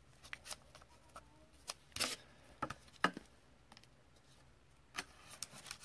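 Trading cards and a clear plastic card holder being handled on a tabletop: scattered soft clicks and brief rustles, a few sharper ones about two and three seconds in.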